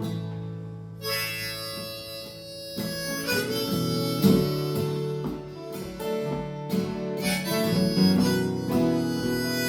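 Harmonica playing a melody over a strummed acoustic guitar in a song's instrumental intro. The harmonica comes in about a second in.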